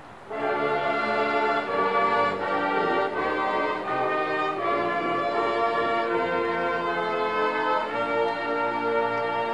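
Marching band brass playing slow, sustained chords that shift every second or so, coming in just after a brief hush at the start.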